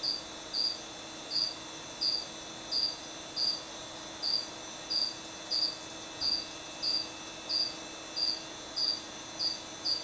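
A cricket chirping steadily, short high chirps repeating evenly about three times every two seconds.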